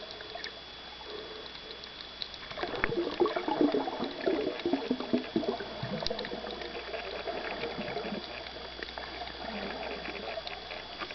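Underwater water sounds: gurgling and bubbling, loudest from about two and a half to six seconds in, over scattered small clicks and a faint steady high tone.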